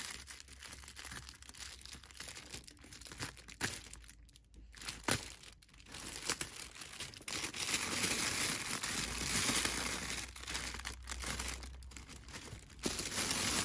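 Thin clear plastic packaging crinkling and rustling as hands pull it open and off a packaged handbag, with irregular crackles. It goes quieter for a moment in the first half, then gets denser and louder in the second half.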